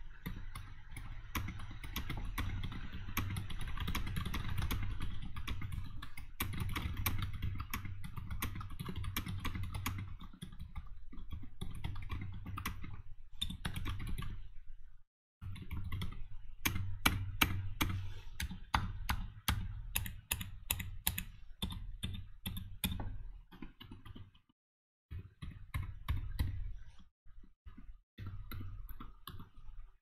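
Fast continuous typing on a mechanical keyboard with lubed Gazzew Boba U4 silent tactile switches and Maxkey doubleshot SA-profile keycaps: a dense, irregular clatter of keystrokes. The typing breaks off briefly about halfway through and again about four-fifths of the way.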